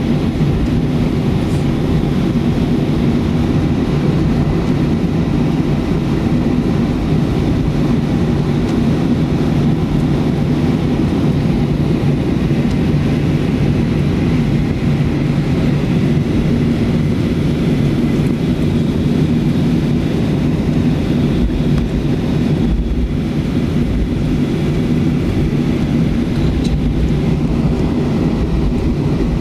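Cabin noise of a Boeing 737-300 moving on the ground after landing: its CFM56 engines running at low thrust, a steady drone with a low hum under rushing air noise.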